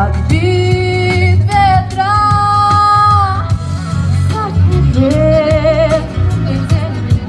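A voice singing long, held notes with vibrato over a backing track with bass and a steady beat.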